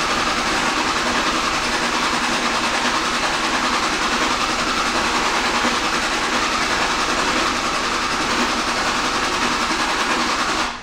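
2005 Dodge 5.9 Cummins common-rail diesel cranking on the starter with a steady, even rhythm but not firing, then stopping suddenly near the end. It is the hot no-start: actual rail pressure is only about 20 to 300 psi while cranking because one or more injectors return too much fuel.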